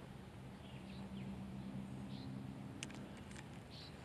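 Faint outdoor ambience: a bird giving short high chirps about every second and a half, over a faint low steady hum, with a couple of tiny clicks.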